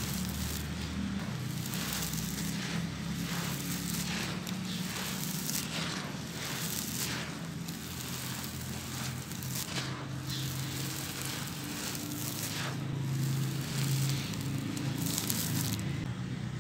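Dry sand-and-cement mix being squeezed, crumbled and poured through bare hands. The grains crackle and hiss in repeated gritty rushes.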